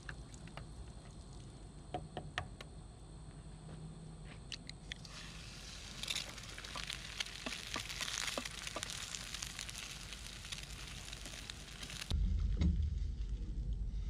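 Butter frying in a pan on a camp stove: a soft sizzle with small crackles, then a fuller, louder sizzle from about five seconds in. Near the end the sound cuts abruptly to a low rumble.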